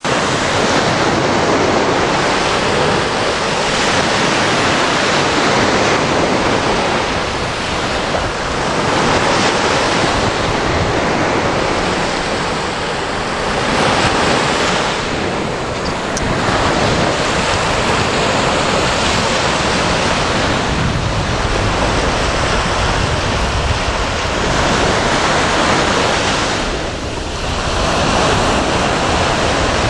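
Small sea waves breaking and washing up a sandy beach, a continuous surf that swells and eases every few seconds, with wind rumbling on the microphone, strongest in the second half.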